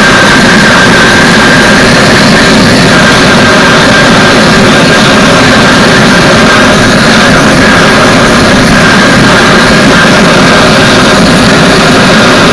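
Gas forge burner running with a loud, steady rush and a steady high whistle through it.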